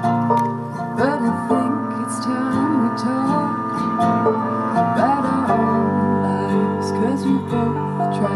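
Live acoustic bluegrass band playing: strummed acoustic guitars with mandolin, banjo and upright bass.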